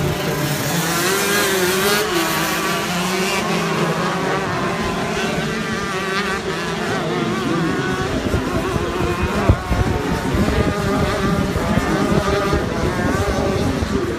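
Shifter kart two-stroke engines racing, their pitch rising and falling as they rev and shift, several engines overlapping. A single sharp knock about nine and a half seconds in.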